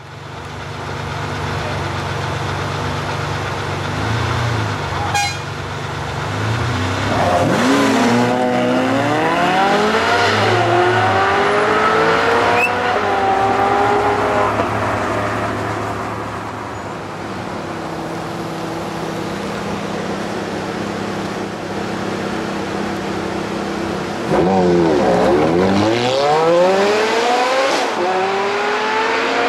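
Supercar engines at full-throttle launches. A Ferrari Maranello's V12 idles, then launches hard about seven seconds in and revs up through several gear changes. Near the end a second launch follows: a Bugatti Veyron and a Ferrari F430 accelerate away together with steeply rising revs.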